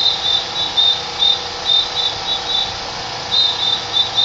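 A drill whistle blown in short, sharp blasts at a steady cadence of about three a second, keeping time for a school drill team, with a short break a little past the middle before the blasts resume.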